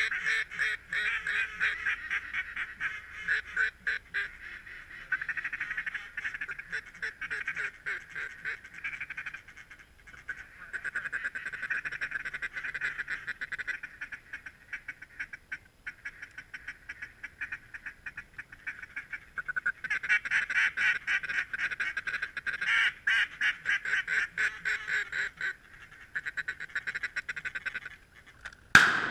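Mallard quacking and rapid chatter, thinning out for a few seconds mid-way, then a single shotgun shot near the end with its echo ringing through the timber.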